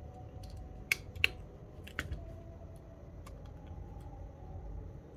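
Small repair tools and a phone circuit board being handled: a few sharp clicks and taps in the first couple of seconds, over a low steady hum.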